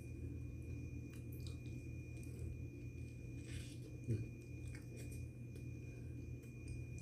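A man chewing a mouthful of khubz flatbread, with faint mouth clicks and a short low sound about four seconds in as he takes another bite. A steady low hum and a thin steady high tone run underneath.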